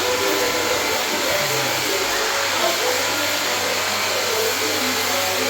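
Pressure washer running steadily: a constant motor hum under the hiss of the high-pressure water spray.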